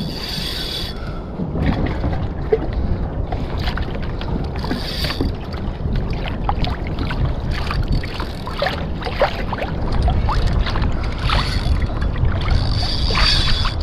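Water lapping and sloshing against a fishing kayak's hull, with wind on the microphone and scattered small splashes and clicks throughout.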